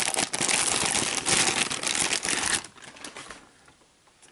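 Plastic packaging crinkling and rustling as a boxed mini PC is unpacked by hand. It stops after about two and a half seconds, followed by a few light handling clicks.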